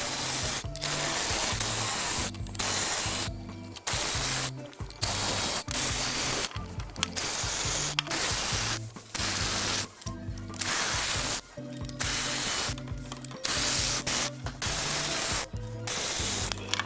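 Background music with repeated short bursts of a power tool, each lasting about a second with brief pauses between them, as the timing cover bolts are run out.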